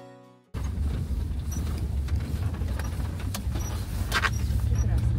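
Background music ends about half a second in and gives way abruptly to the low, steady rumble of a moving vehicle heard from on board, with a few faint clicks and knocks.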